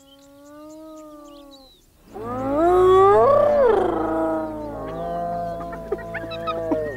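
Spotted hyenas calling: first a long whoop that rises slightly in pitch, then a louder call that swoops up and down. About two seconds in, a low steady music drone comes in beneath them, and faint bird chirps sound in the first seconds.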